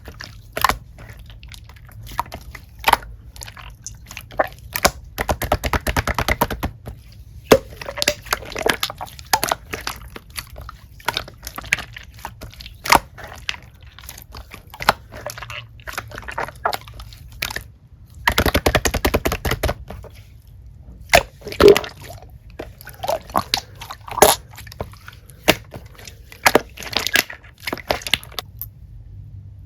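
Close-up eating sounds: crunchy bites and chewing in sharp, irregular cracks and clicks, with two longer runs of rapid crackling, one about five seconds in and one near the middle.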